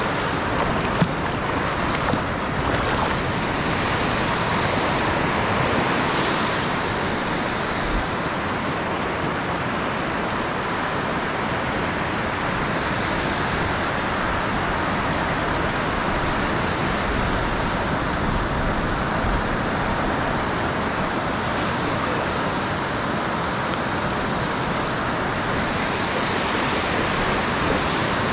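Shallow ocean surf washing in and out around wading legs, a steady rush of broken waves and foam, with one brief knock about a second in.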